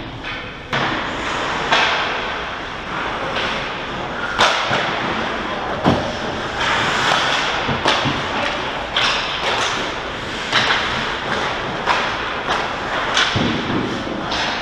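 Ice hockey play: skates scraping and carving on the ice, with sharp knocks of sticks, puck and boards every second or two, the loudest about six seconds in, and a stretch of scraping hiss near the middle.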